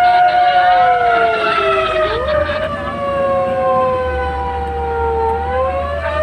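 Fire engine sirens wailing, at least two slow rising-and-falling wails out of step with each other, over a low rumble that grows about two seconds in.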